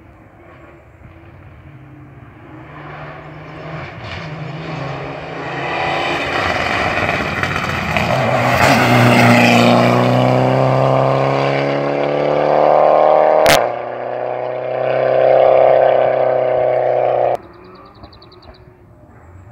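Rally car approaching and passing close at full throttle, its engine note building to its loudest as it goes by and then pulling hard away. A single sharp crack about two-thirds of the way through, then the engine sound cuts off abruptly near the end.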